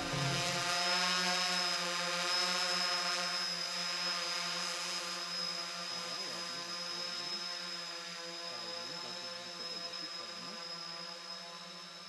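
Octocopter camera drone's eight rotors buzzing steadily with a high whine, with small wavers in pitch from about halfway. The sound fades slowly as the drone flies away.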